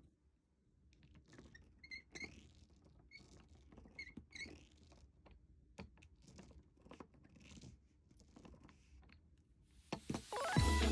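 Clear acrylic roller being rolled and pressed over a finished diamond painting, the resin drills giving faint, irregular clicking and crackling as they are pressed down to set them in the adhesive canvas. Music comes in near the end.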